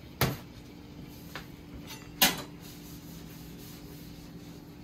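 Two sharp knocks of kitchen items being handled and set down on a counter, about two seconds apart, with a few lighter taps between them and a faint steady hum behind.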